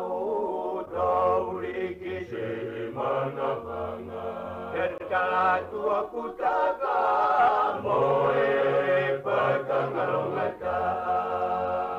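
Music: a song with singing voices over a bass line.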